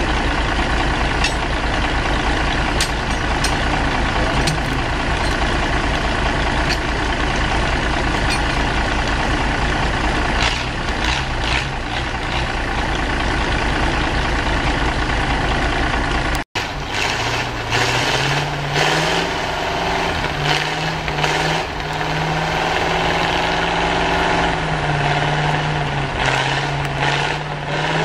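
Heavy engine of a truck-mounted logging machine running steadily with a low throb, with scattered knocks and clanks as logs are yarded in by cable. Past the middle its pitch rises and holds higher, as under load.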